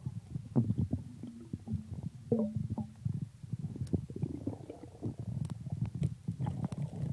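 Muffled underwater sound from a camera held under water: a low rumbling with many irregular clicks and knocks of water and handling against the camera, and a short pitched sound about two and a half seconds in.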